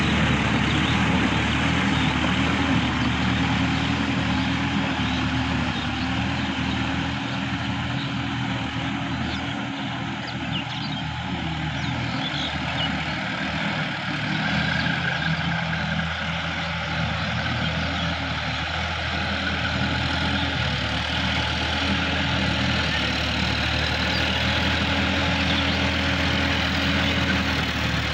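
Sonalika DI-50 RX tractor's diesel engine running steadily under load as it pulls a rotavator through a flooded rice paddy. It grows a little quieter around the middle as the tractor moves off and louder again as it comes back.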